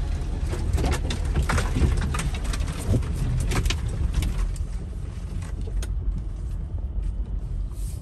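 Jeep Gladiator crawling along a rough trail with a low engine rumble, heard from inside the cab, while brush and branches scrape against the body and windshield. The scraping comes thick and fast for about the first four seconds, then thins out as the Jeep clears the brush.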